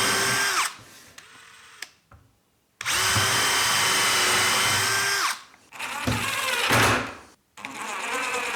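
Power drill driving screws in short runs: a steady motor whine that drops in pitch as each screw seats, twice, followed by rougher, more ragged bursts of drilling near the end.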